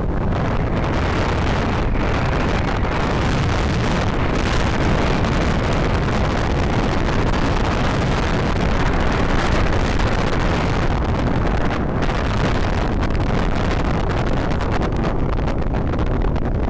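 Steady, loud wind buffeting the microphone from a moving vehicle, with road and engine noise mixed in beneath.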